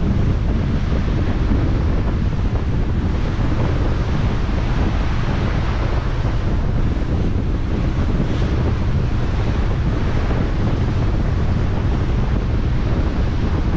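Wind buffeting the microphone on a ferry deck, a steady low rumble, over the rushing wash of sea water.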